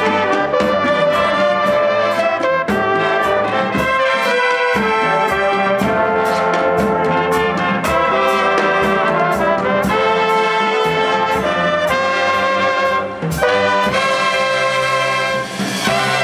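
Drum and bugle corps brass playing a tune over a steady beat of drum kit, timbales and congas.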